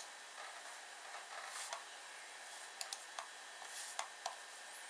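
Mouse button of a Macintosh LC III clicking: a handful of sharp single clicks, two of them in quick succession about three seconds in, with two short soft hisses in between over a faint steady hiss.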